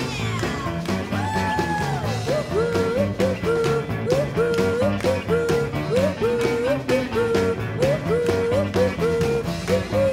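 Background music: an upbeat rock-and-roll style song with a steady beat and a short sliding melodic phrase repeated about twice a second.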